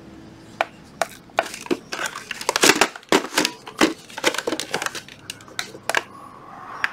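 Irregular hard plastic clicks and knocks as a Hitachi 14.4–18 V Li-ion slide-battery charger and its battery pack are handled and turned over, busiest in the middle.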